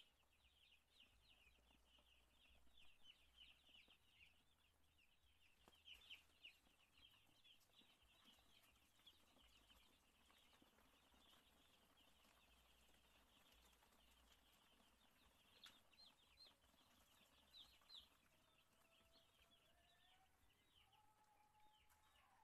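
A large flock of day-old chicks peeping without a break: many short, high peeps overlapping into a continuous chorus, heard faintly.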